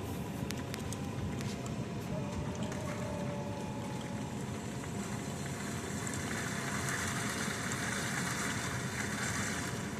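Construction machinery running steadily during a concrete pour, with a few faint steady tones in the engine noise. A steady hiss joins about six seconds in.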